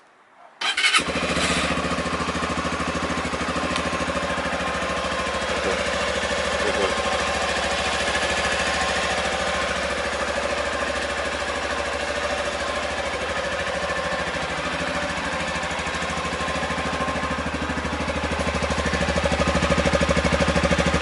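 Sinnis Terrain 125 motorbike engine starting up less than a second in and then idling steadily, a little louder near the end, with its side-stand kill switch disconnected.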